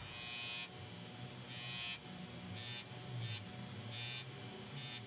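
Bench grinder motor humming steadily with a buffing wheel spinning, as a small steel ball-peen hammer head is pressed against the wheel in about six short hissing bursts to polish it.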